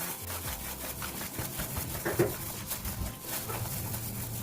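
Eggs and dry ingredients being stirred into flour, heard as quick, irregular rubbing and scraping strokes.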